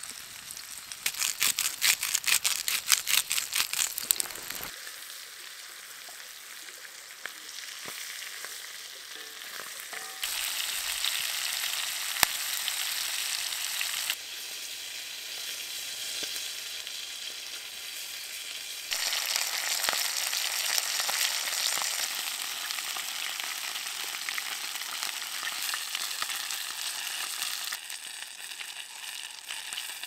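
Chicken drumsticks frying in oil in a cast-iron skillet over a campfire: a steady sizzle, with rapid spitting pops during the first few seconds. The sizzle jumps louder and softer abruptly several times.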